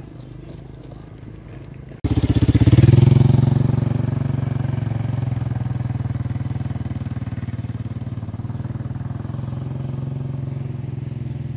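A small motorcycle engine running, with a rapid, even beat of firing pulses. It is fainter at first, becomes suddenly much louder about two seconds in, peaks a second later, then eases off slightly.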